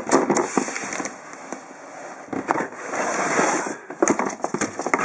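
Rustling, crackling and clicking of equipment being rummaged out of a cardboard box, as a long nylon bottle brush is pulled out against the box and a plastic stirring paddle.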